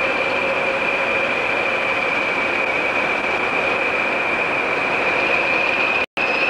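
Railway coach wheels squealing on a curve: a steady high-pitched flange squeal over the train's running noise. The sound cuts out for an instant near the end.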